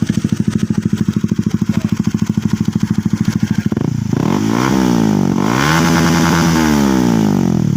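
Honda CBR150's single-cylinder engine through an aftermarket SC exhaust, idling with an even pulse, then blipped and revved up about four seconds in, held high for a moment, and dropping back toward idle near the end.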